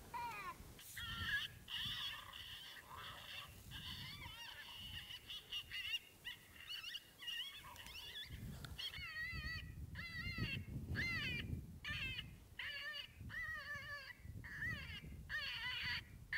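Electronic predator call playing a prey distress sound: high, wavering cries, thin and drawn out at first, then short quavering cries about twice a second from about halfway through.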